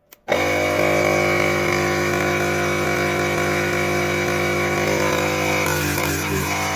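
Cordless car tire inflator switched on with a click, its electric compressor starting a fraction of a second later and running steadily at a loud, even pitch: a test run after a battery repair.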